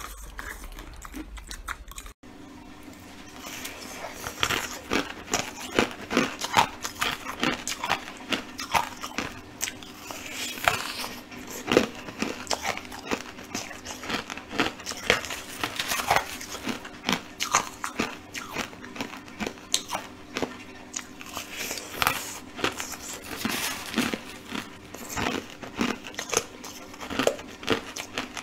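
Crunching and chewing of hard, crushed coloured ice, many sharp crunches in quick succession, over a steady low hum.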